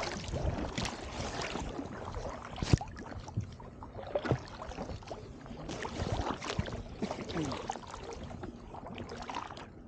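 Kayak paddle strokes splashing through icy seawater with floating brash ice, in an irregular run of splashes and small knocks. There is one sharp knock near three seconds in.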